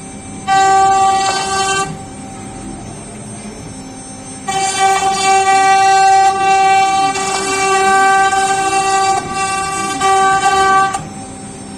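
CNC router spindle running with a steady high whine that gets much louder in two stretches: briefly about half a second in, then from about four and a half seconds until near the end, as the bit works the door panel.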